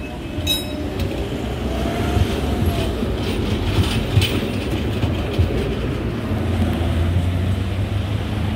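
V3A-93 articulated tram running on its rails: a steady rumble of wheels and running gear.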